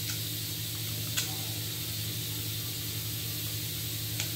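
Steady background hiss with a low hum, and three small plastic clicks (near the start, about a second in, and near the end) as a Beyblade top is handled and pushed against its launcher while being fitted in.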